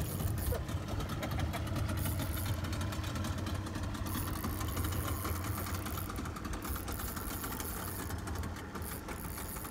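Boat engine idling steadily, with rapid fine mechanical ticking over it.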